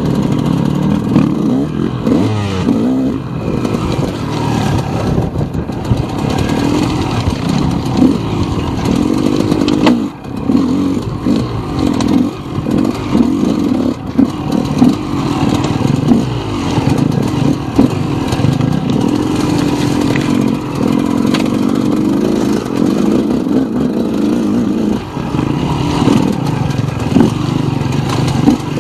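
KTM enduro dirt bike engine heard from on the bike, its note rising and falling with the throttle on a rough trail. Scattered knocks and clatter come through as the bike rides over rocks and roots.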